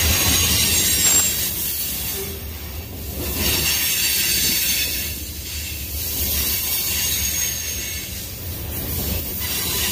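Covered hopper cars of a Union Pacific manifest freight train rolling past close by, the wheels running on the rails with a faint high squeal; the sound swells and fades as each car goes by.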